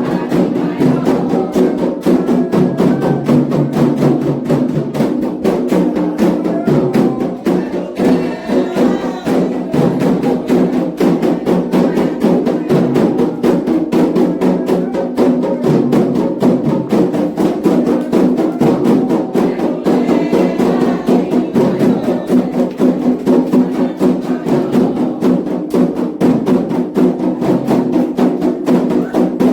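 Candomblé ritual drumming: atabaque hand drums and a struck metal bell keep up a fast, steady rhythm, with singing voices coming in at times.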